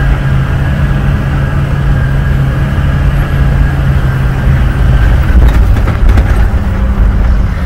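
A vehicle driving off-road on a sandy track, heard from inside the cab: a steady low engine and drive hum. From about five seconds in it grows louder and rougher, with a few knocks and rattles as the vehicle jolts over the uneven ground.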